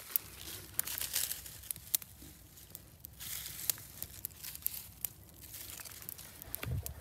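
Small, newly lit wood campfire crackling, with irregular sharp snaps and rustling, and a dull thump near the end.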